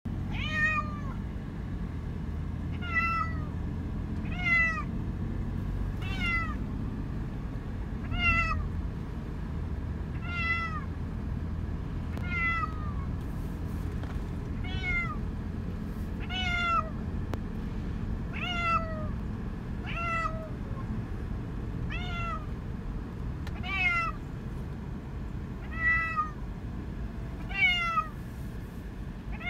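Calico cat meowing over and over, about one falling meow every two seconds, over a steady low rumble from the car.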